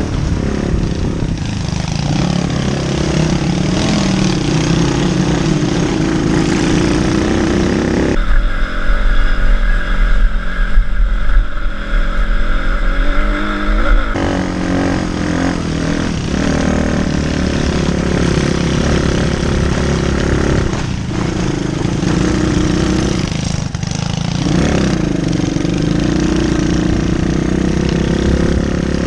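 Pit bike's small single-cylinder four-stroke engine running and revving up and down under way, picked up close by an on-bike camera. For several seconds about a third of the way in, heavy wind buffeting on the microphone covers the engine.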